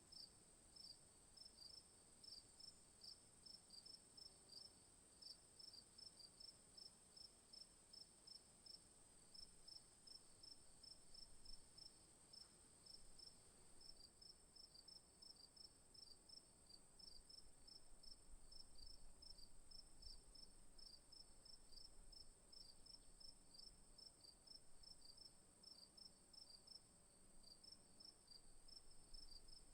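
Faint insect chorus: a continuous high-pitched drone with rapid, regular high chirps repeating several times a second.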